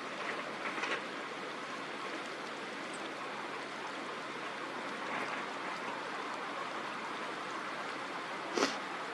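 Steady outdoor rushing noise, like flowing water, with a single sharp, brief knock about eight and a half seconds in.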